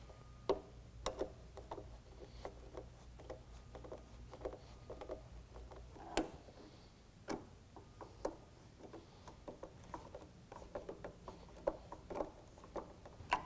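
Hand Phillips screwdriver driving screws through a plastic end cap into a running board: faint, irregular clicks and scrapes as the screwdriver is turned and re-gripped, the loudest about six seconds in.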